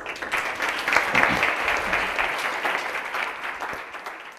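Audience applauding, starting suddenly and fading out near the end.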